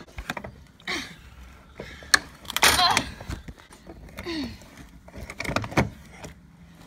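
Handling noises at a window frame: scattered clicks and knocks, with a louder scraping rasp about two and a half seconds in.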